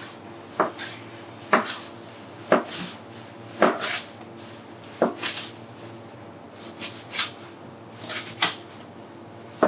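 A knife cutting goat-lamb shoulder meat into stew cubes on a plastic cutting board. The blade knocks against the board in irregular strokes, roughly one a second.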